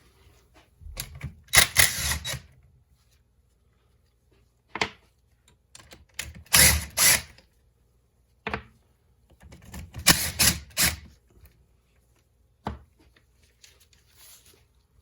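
Hand tools working the cylinder base nuts off a 2002 Honda CR250 two-stroke engine: short bursts of metallic clicking and clinking, about six times, with quiet pauses between them.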